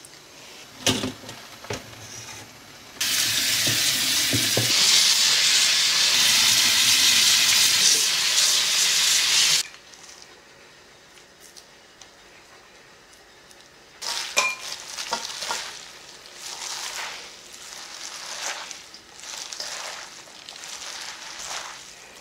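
Water running steadily for about six seconds over the boiled noodles, starting a few seconds in. Later come soft, irregular wet scraping and squishing, as spicy sauce is spooned onto the noodles in a stainless steel bowl and worked through them by hand.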